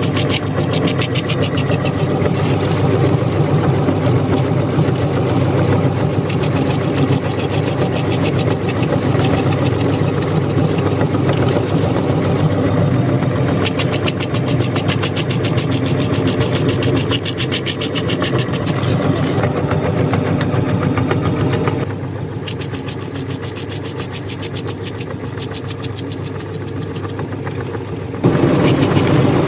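Electric meat grinder running while grinding a large crunchy cookie: a steady motor drone under dense, fast crackling and crunching. About 22 seconds in the crackle fades and the grinder runs quieter for several seconds, then turns loud and crunchy again near the end.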